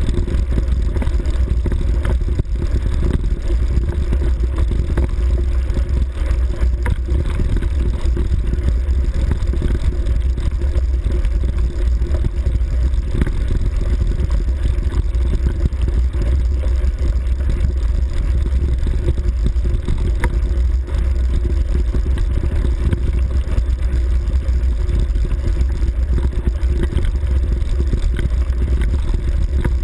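A motor vehicle's engine running steadily as it travels over a grass track, with heavy low wind rumble on the microphone.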